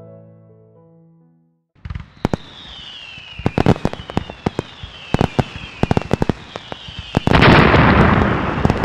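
Soft piano music fades out. After a short gap come fireworks: sharp cracks and pops, several falling whistles, and a louder, sustained crackling burst from about seven seconds in.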